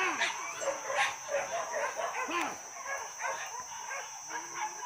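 Pack of hunting dogs barking and yelping, many short overlapping barks coming one after another, over a steady high-pitched tone.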